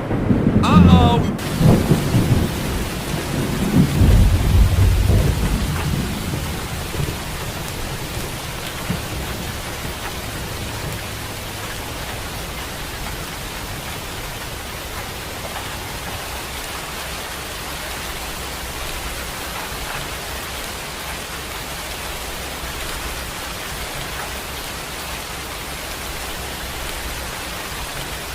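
Thunder rumbling for the first few seconds over heavy rain, then steady rain falling.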